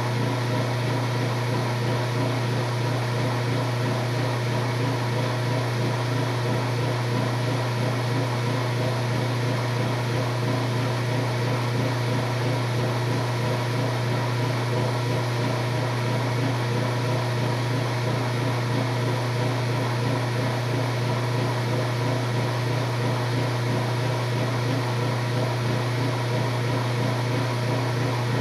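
Washing machine running with a steady low hum that holds even in pitch and level throughout.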